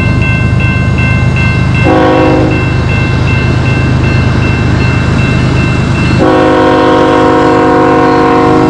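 CN diesel locomotive horn blowing for a grade crossing: a short blast about two seconds in, then a long blast from about six seconds in, over the steady low rumble of the locomotives. A crossing bell rings in rapid pulses until the long blast starts.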